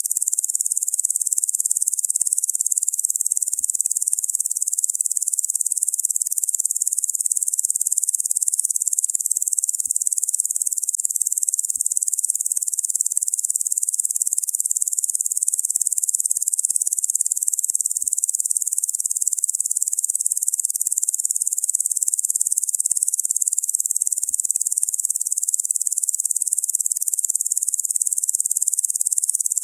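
Locusts buzzing in a steady, unbroken high-pitched drone.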